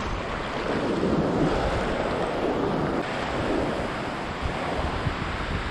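Ocean surf washing onto a sandy beach, with wind buffeting the microphone.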